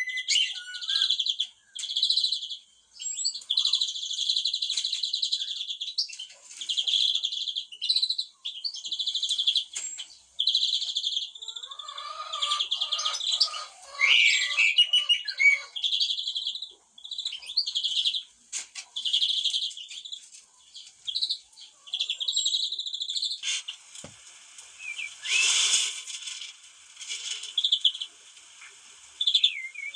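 Songbirds singing and chirping, one short high call repeated again and again with more varied song mixed in. A brief rushing sound comes about three-quarters of the way through.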